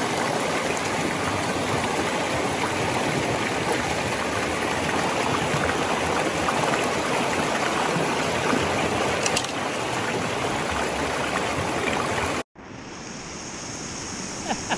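River water rushing steadily over rocks in small rapids. About twelve seconds in it cuts out for a moment and comes back quieter.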